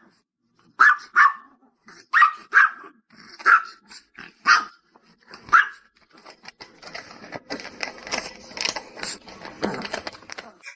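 A dog barking in short, sharp barks, often in quick pairs, about seven over the first six seconds. A stretch of scuffling, clicking noise follows.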